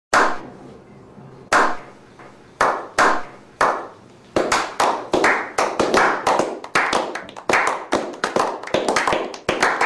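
A slow clap: single hand claps about a second apart, each with an echoing tail. From about four seconds in, more people join and the clapping speeds up into a small group's applause.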